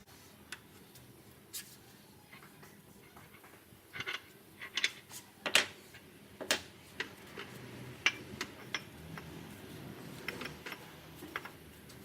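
Metal tools and parts clinking and tapping irregularly: about fifteen short sharp clicks, bunched from about four seconds in and loudest around the middle.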